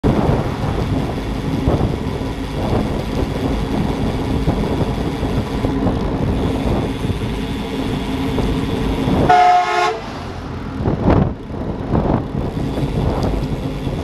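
Wind rushing over the microphone of a camera on a fast-moving bicycle, with a vehicle horn honking once, briefly, a little past nine seconds in.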